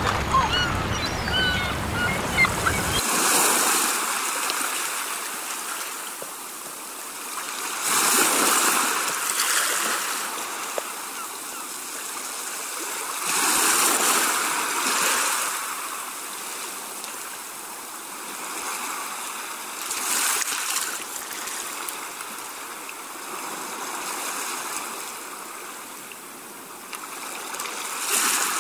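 Rushing air and road noise from a moving car, swelling and fading every five or six seconds.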